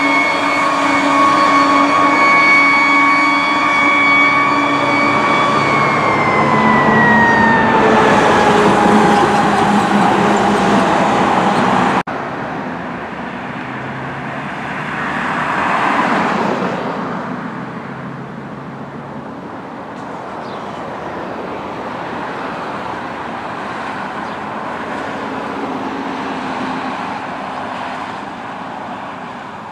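Fire engine siren holding one steady tone, then falling slowly in pitch from about six seconds in. It breaks off suddenly, and road traffic follows, with a car passing close by a few seconds later.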